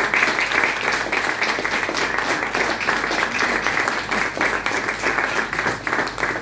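Audience applauding: many hands clapping, steady and dense.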